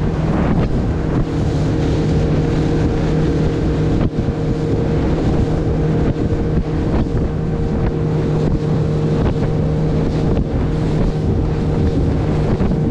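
Fishing boat's motor running at a steady drone while underway, with wind rushing over the microphone.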